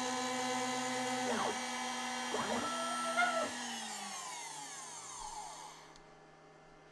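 CNC router spindle with a tapered ballnose bit running and cutting wood, its pitch dipping and recovering briefly twice. About halfway through the spindle spins down with a falling whine that fades out.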